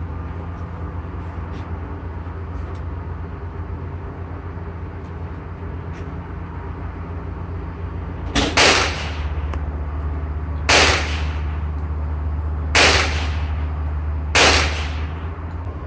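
Four shots from a suppressed AR-15 in .300 Blackout, firing hand loads. They are spaced about two seconds apart, starting about eight seconds in, each a short crack with a brief tail, sounding like just a .22. A steady low hum runs underneath.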